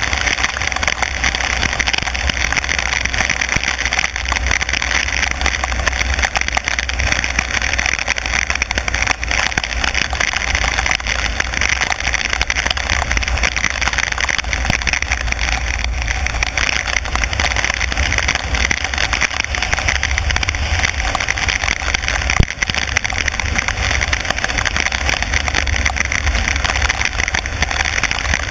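A car driving on a wet road in heavy rain: a steady low rumble of engine and road noise under an even hiss of wet tyres and rain. There is one sharp click about three-quarters of the way through.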